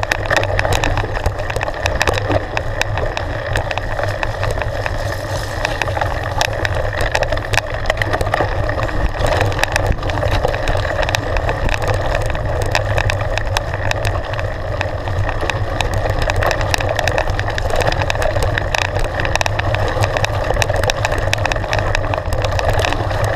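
Mountain bike riding fast down a stony trail: a steady rumble of knobbly tyres over loose gravel, with constant small clicks and rattles from the bike.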